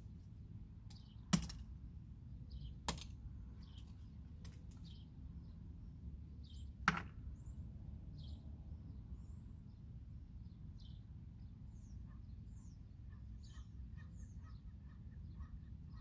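Birds chirping with short, high calls, joined by a run of quick repeated notes near the end. There are three sharp knocks over the birdsong, the loudest about seven seconds in.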